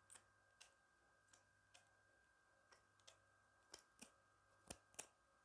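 Barber scissors snipping close to the microphone: about ten crisp, faint snips at uneven spacing.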